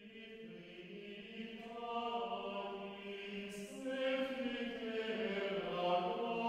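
Background music: a slow choral chant of long held notes, fading in over the first couple of seconds.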